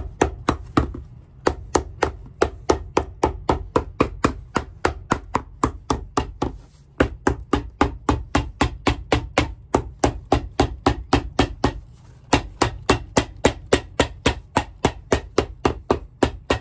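Cobbler's hammer tapping rapidly and evenly on a shoe, about four to five blows a second, in runs broken by short pauses about a second in, around seven seconds in and around twelve seconds in.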